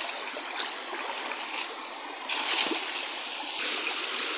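Shallow rocky stream flowing steadily, with a brief splash of water a little past halfway.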